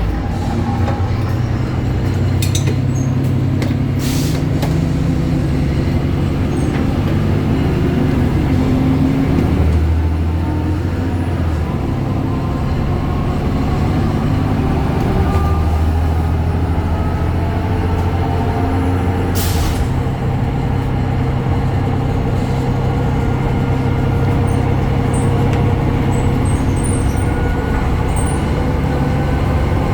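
BredaMenarini Avancity Plus city bus under way, its Deutz Euro 5 diesel engine and ZF gearbox running steadily, with a whine that climbs slowly over the second half. Two short hisses of compressed air, about four seconds in and again about twenty seconds in.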